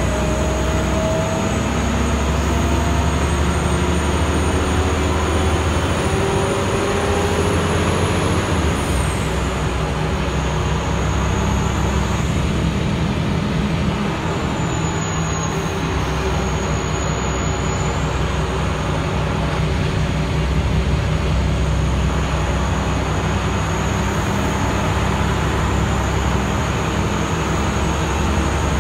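Scania L94IB city bus heard from inside the passenger cabin while driving: its diesel engine runs steadily under tyre and road noise. A whine rises slowly in pitch over the first several seconds as the bus gathers speed.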